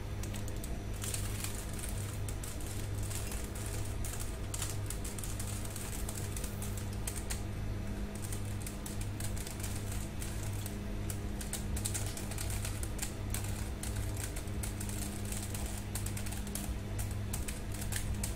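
Computer keyboard typing in irregular bursts of quick clicks over a steady low hum.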